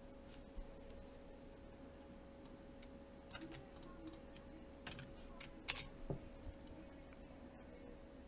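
Faint computer keyboard typing and clicking: a few scattered key presses, bunched between about three and six seconds in, over a faint steady hum.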